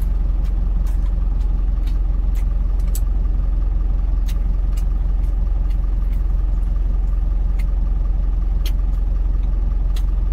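Truck engine idling steadily, heard from inside the cab, with a few scattered light clicks over it.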